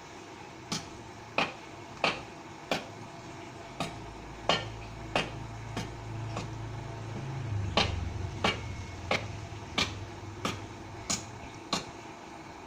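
Repeated chopping blows of a hand tool into mango tree wood: sharp knocks about three every two seconds, around eighteen in all, with two brief pauses. A low hum swells and fades in the middle.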